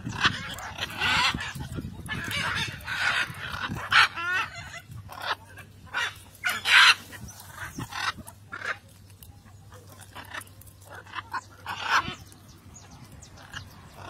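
Flock of blue-and-yellow macaws squawking: short harsh calls one after another, thickest in the first half, thinning out later with one more loud call near the end.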